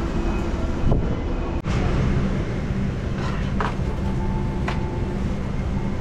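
Steady low rumble and hum of an airliner cabin, dipping briefly about a second and a half in.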